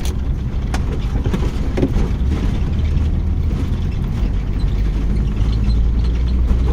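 Steady low rumble of a moving vehicle, with a few sharp clicks in the first second.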